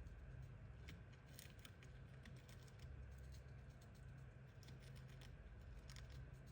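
A hamster nibbling and crunching food: faint, quick runs of tiny clicks in irregular clusters, over a low background hum.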